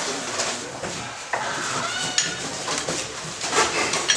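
Clatter of household objects being handled: small knocks, rubbing and rattling of dishes and wood, with a brief squeak about halfway through and a sharp knock at the end.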